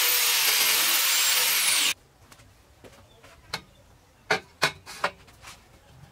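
Angle grinder with a cut-off wheel cutting through steel plate, a loud steady high hiss that stops abruptly about two seconds in. Then a few sharp metallic clinks as the cut steel plate is handled on the steel bars.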